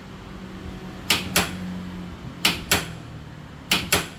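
Half-inch drive click-type torque wrench set to 250 foot-pounds, clicking as it reaches its set torque counterclockwise on a torque tester: three sharp double clicks about a second and a quarter apart.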